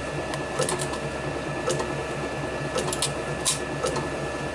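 Small metal drill bits clicking and rattling in a plastic drill-bit case as fingers pick through them, a handful of short sharp clicks, over a steady motor hum with a faint whine.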